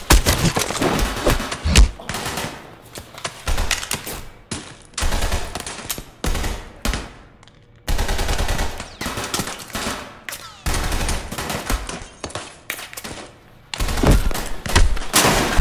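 Automatic gunfire from a film firefight, in several bursts of rapid shots with short gaps between them, loudest near the end.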